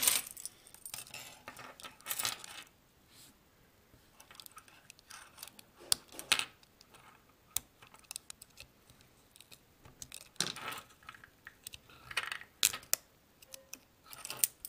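Scattered small clicks, taps and short scrapes as fingers and a thin tool work at the ribbon-cable connectors and foil sticker inside an opened Nexus 7 tablet, with quiet gaps between.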